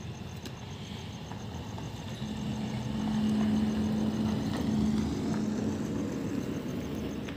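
A motor vehicle passing by: a low, steady engine hum swells over a few seconds, is loudest around the middle, then slowly fades.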